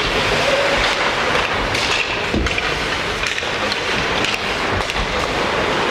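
Ice hockey play on a rink: skates scraping and carving the ice, with a few short sharp knocks of sticks and puck.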